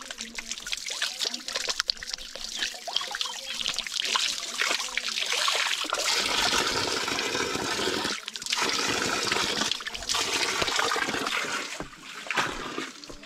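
Water running and splashing, louder from about four seconds in, with short breaks about eight and ten seconds in: someone washing hands and feet with flowing water.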